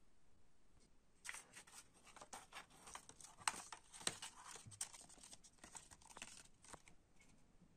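Paper cassette J-card insert being folded up and handled: dry crinkling and rustling of the printed card, a quick string of crackles starting about a second in and stopping near the end.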